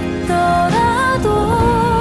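Background music: a slow melody of held notes, one wavering slightly in pitch, over a steady low accompaniment.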